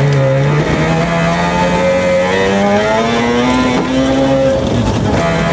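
Mazda RX2 rally car's rotary engine pulling hard under acceleration. Its pitch climbs steadily for about four seconds, then drops sharply as the revs fall away near the end. Under it runs a steady rush of tyres on gravel.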